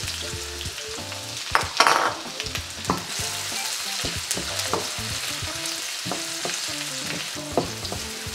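Diced red onions sizzling in hot oil and rendered pork fat in a stainless steel wok. A wooden spoon stirs them, knocking and scraping against the pan, with the loudest knocks about two seconds in.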